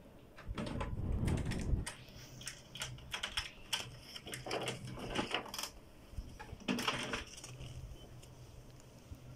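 HP Smart Tank 515 inkjet printer working through a print: its mechanism clicks and clatters irregularly over a steady low motor hum, with a louder low rumbling stretch about a second in.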